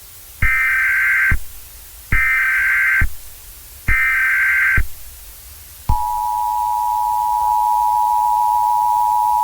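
Emergency Alert System signal: three short bursts of SAME header data, each about a second long, then about six seconds in the steady two-tone EAS attention signal begins, the tones that open an emergency alert broadcast.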